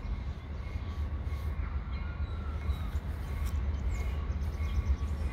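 Low, steady rumble of an approaching Great Lakes Central Railroad diesel train, with birds chirping over it.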